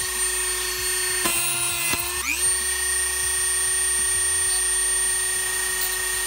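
Dremel 4000 rotary tool with a cut-off wheel, running at high speed and cutting brass L stock. About a second in its pitch sags, then it winds back up to a steady high whine.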